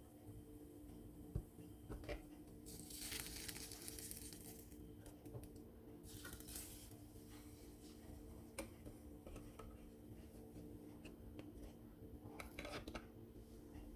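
Quiet kitchen handling sounds: scattered light clinks and knocks of utensils and dishes, with two short hissing rushes, over a steady faint hum.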